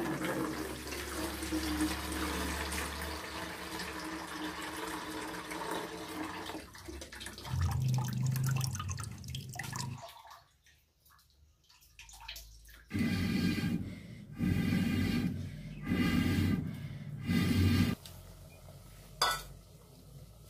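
Rice-washing water poured off from a metal bowl into a plastic bucket: one long steady pour, then a handful of short, louder splashing pours later on.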